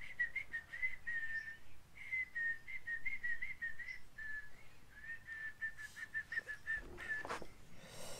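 A person whistling a tune: one high, thin line that wavers and trills from note to note, with a couple of short breaks.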